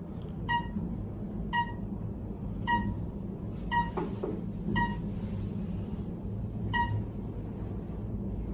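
Otis scenic elevator in travel: a short electronic beep sounds about once a second, the floor-passing tone, over the steady low hum of the moving car.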